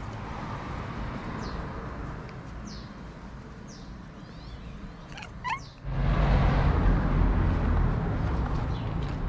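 White street cat giving a few short meows. About six seconds in, a louder, low noise starts as the cat begins eating dry kibble from a bowl.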